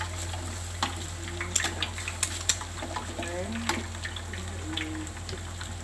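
Hot oil sizzling with irregular sharp pops and crackles as eggs and chilli spice paste stir-fry in a wok and an egg fries in a second pan.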